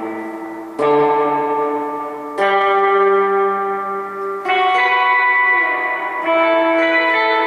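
Electric guitar played clean through a Gomez El Sonido amp, a 50-watt Fender Bassman clone. A new chord is struck about every two seconds and rings out until the next one.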